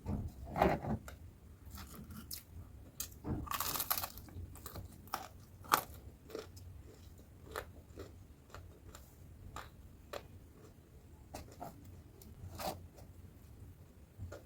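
Close-up chewing and crunching of crispy batter-fried tempeh, with irregular crisp bites and a longer, louder crunch about four seconds in.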